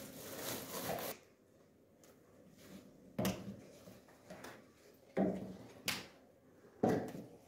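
A thin plastic shopping bag rustling for about a second as shoes are stuffed into it, then four short, sharp knocks at uneven intervals.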